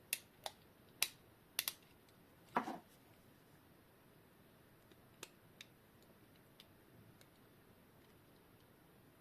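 Small sharp clicks and taps as the last hand is worked off a quartz alarm clock movement: about six in the first three seconds, then only faint scattered ticks.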